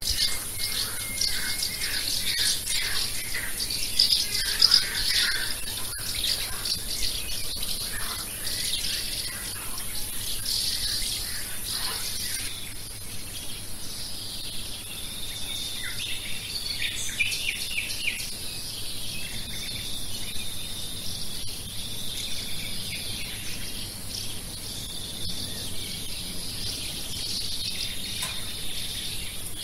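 Riverside outdoor ambience: many birds chirping and twittering, busiest in the first dozen seconds, over a steady high insect drone.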